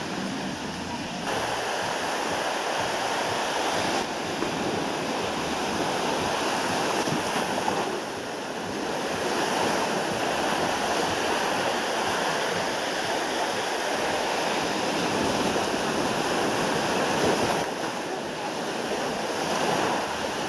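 Small waves washing onto a sandy beach, a steady hiss of surf that swells and eases, dipping briefly about eight seconds in and again near the end.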